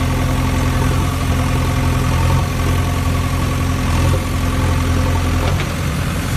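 Engine idling steadily with a low, even hum.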